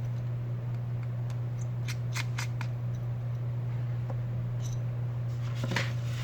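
Scattered light clicks and ticks of small repair tools on an opened iPhone 6 Plus as the home-button bracket is undone, over a steady low hum.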